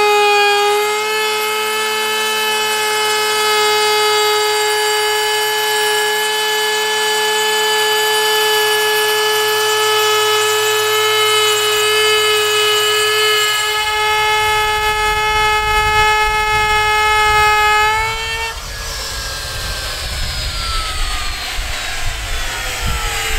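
Electric power tool motor running at a steady high-pitched whine, then switched off about three quarters of the way through and winding down with a falling pitch.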